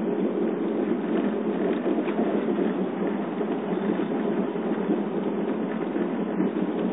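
Front brake pads of a 2008 Subaru Forester 2.5XT rattling in their calipers while the car drives with the brake released, a steady loud rattle over road noise. It is the sign of pads loose in the caliper, which grease between pads and caliper cures only for a couple of weeks.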